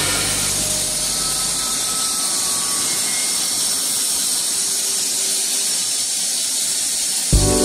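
CNC lathe turning a steel part with flood coolant spraying inside the enclosure: a steady hiss of coolant spray and cutting. Music cuts in near the end.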